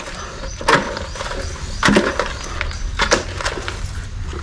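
Fish and net being handled in a small boat: sharp knocks and rattles about once a second over a low steady rumble.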